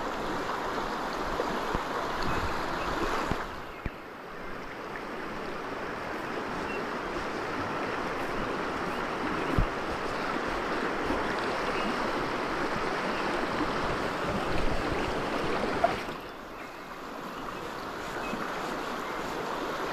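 Steady rush of a shallow, rocky river's rapids and riffles. It drops away briefly about four seconds in and again near the end, with a couple of faint knocks.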